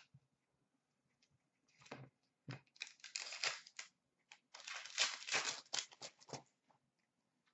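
A foil pack of 2016-17 Upper Deck SP Authentic hockey cards being torn open and handled, the wrapper crinkling in short bursts about two seconds in and again from about three to six seconds in.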